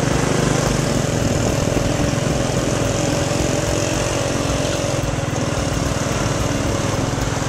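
Small motorcycle engine running at a steady speed while riding, with road and wind noise over it.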